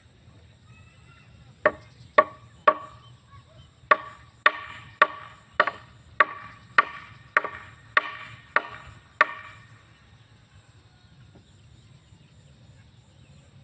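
Hammer driving nails into wooden planks: thirteen sharp ringing blows, three quick ones, a short pause, then ten more at nearly two a second before stopping.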